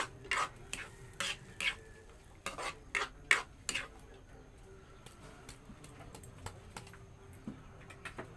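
Metal spoon stirring tomato spaghetti sauce in a frying pan, knocking and scraping against the pan about two or three times a second. The stirring stops about four seconds in, leaving only a faint simmer with small ticks.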